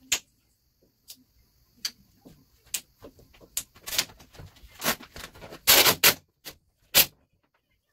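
Black vinyl wrap film crackling and snapping as it is pressed and smoothed onto a car hood: scattered sharp clicks, then a loud crackling rustle about six seconds in as the sheet is lifted up off the panel, and one more snap near the end.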